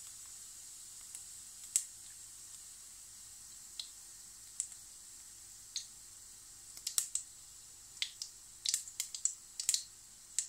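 Mustard seeds popping in hot oil at the tempering stage: scattered sharp pops, only a few at first, coming quicker near the end as the seeds begin to splutter, a sign that the oil is hot enough.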